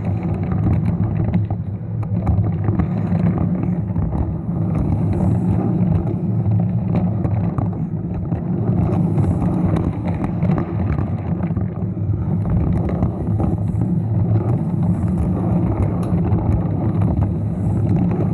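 Lego train running on plastic track: a steady motor hum with a rattle of small clicks from the wheels on the rails.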